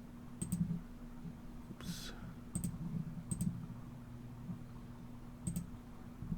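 Computer mouse clicking: about five sharp clicks, some in quick pairs, over a low steady hum.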